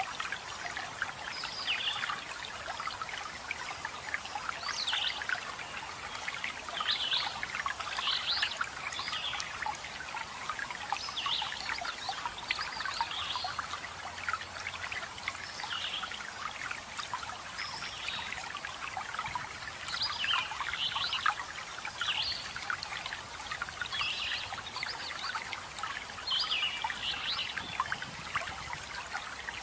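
Water running steadily with a trickling, splashing sound from a small waterfall or stream. Birds give short, repeated high chirps throughout.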